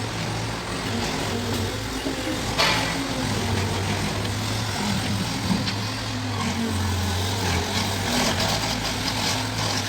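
Bobcat skid steer loader's diesel engine running steadily, its note dipping and recovering as the machine works. A sharp clank comes about two and a half seconds in, and a smaller knock near the middle.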